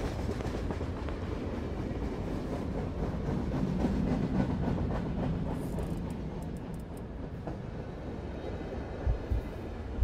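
Underground train rumbling in the tunnel, swelling about four seconds in and then easing off, with a few low thumps near the end.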